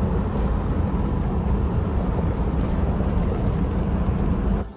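Steady rumble of a moving car: road and wind noise with a low hum underneath, cutting off suddenly near the end.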